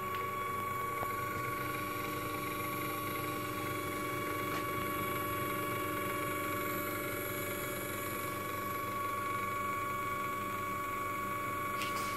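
Nespresso Barista recipe maker frothing semi-skimmed milk: its motor-driven whisk runs with a steady whine that holds one pitch.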